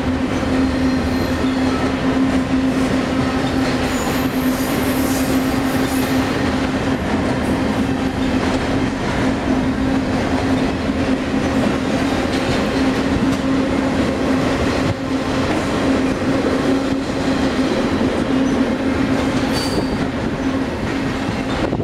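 Double-stack intermodal container train's well cars rolling past at close range: a steady rumble of steel wheels on rail, with a steady low hum running through it and scattered clicks of wheels over the rail joints.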